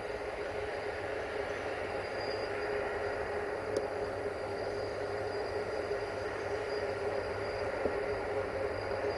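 A train running steadily with a constant hum that does not rise or fall, and one sharp click about four seconds in.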